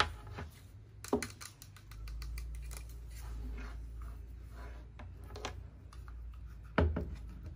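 Plastic hair straightening brush and its rubber-coated power cord being handled: small clicks, taps and rubbing as the brush is turned over and the cord lifted, with a sharper knock about seven seconds in. A low steady hum comes in about two seconds in.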